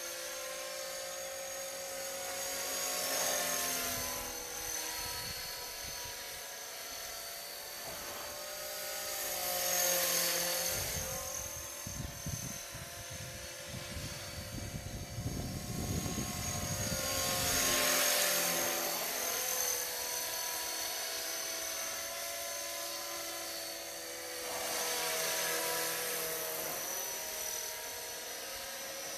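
Electric 450-size RC model helicopter with a Bell 206 Jet Ranger scale body flying past: a steady high-pitched motor and rotor whine that swells louder and bends in pitch each time it passes, several times over.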